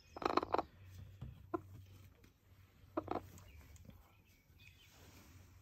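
Silkie hen giving short agitated calls: one right at the start, a small one about a second and a half in, and another about three seconds in. An upset hen complaining.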